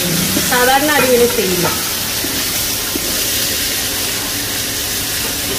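Drained kaima rice sizzling steadily as it is stirred in hot ghee and oil in a large steel pot, a frying hiss. A short voice cuts in about half a second in.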